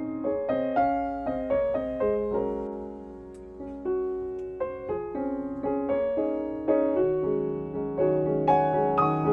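Background music: a soft piano melody with chords.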